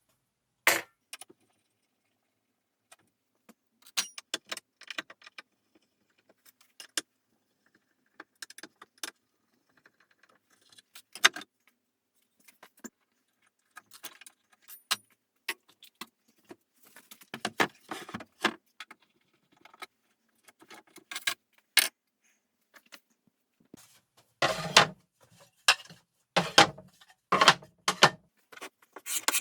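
Scattered clicks and metallic clinks of tools and small metal parts being handled on a workbench, with a few louder, heavier knocks in the last few seconds.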